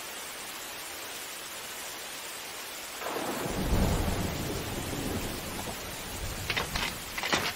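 Steady rain hissing, then about three seconds in a roll of thunder rumbles in, peaks and slowly fades. A few short sharp clicks come near the end.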